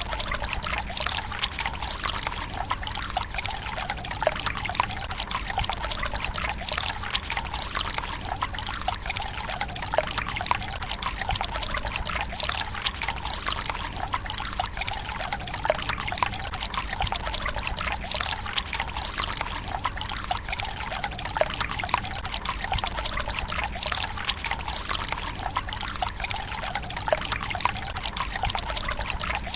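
Water pouring from a bamboo spout into a tsukubai stone basin: a steady trickle and splash, flecked with many small drips and splashes.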